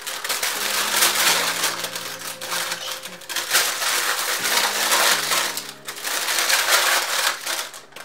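Baking parchment crinkling and rustling loudly in irregular surges as a freshly baked sourdough loaf wrapped in it is lifted out of a roasting dish and handled.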